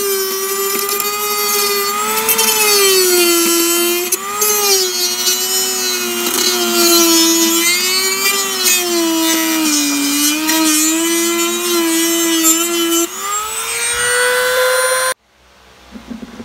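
Dremel rotary tool running at high speed while cutting small plastic fins. Its whine dips and wavers as the bit bears into the plastic. Near the end it rises as the load comes off, then cuts off abruptly.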